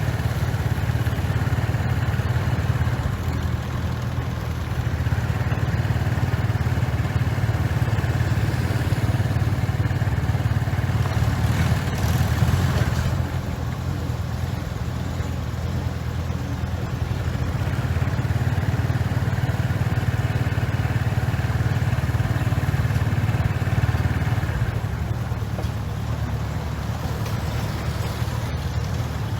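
Komatsu bulldozer's diesel engine running under load with a steady low rumble, its level easing and rising again a few times as the machine works. About twelve seconds in, a brief rushing noise rises over the engine.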